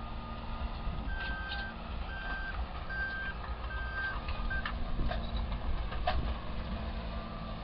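A heavy vehicle's reversing alarm beeps at a steady pace, about one beep every 0.8 seconds, four full beeps and a short fifth, over the low running of its engine. A few sharp knocks or clanks follow.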